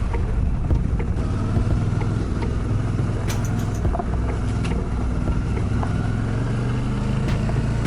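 Suzuki V-Strom 650's V-twin engine running steadily.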